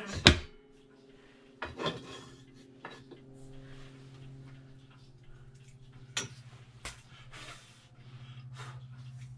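Metal clanks and knocks of a Rayburn cooker's enamelled cast-iron doors and latches being opened, shut and worked by hand, the loudest knock just after the start. A low steady hum runs underneath and grows louder near the end.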